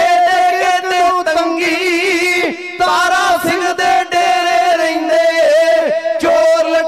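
Male voices of a Sikh dhadi group singing together, holding long wavering notes on drawn-out vowels, with short breaks between phrases.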